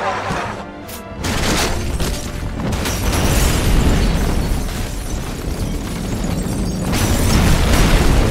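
Film soundtrack of a house explosion: after a brief lull, a deep blast rumble starts about a second in and keeps going as debris flies, swelling again near the end, mixed with a musical score.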